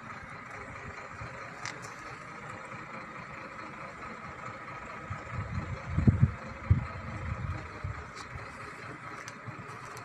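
Steady hum of distant road traffic, with a few muffled low thumps on the microphone about six to seven seconds in.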